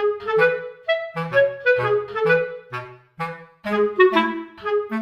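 Background music: a bouncy instrumental tune of short melody notes over a bass line, about two notes a second.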